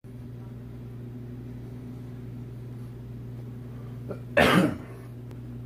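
One short cough about four and a half seconds in, over a steady low hum.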